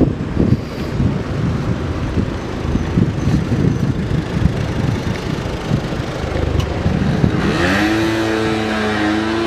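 Wind buffeting the microphone as a low uneven rumble; from about seven seconds in, a motor vehicle's engine rises in pitch and then holds steady as it accelerates.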